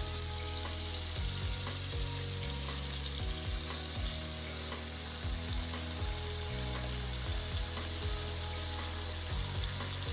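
Cherry tomatoes sizzling steadily as they fry in oil in a nonstick pan.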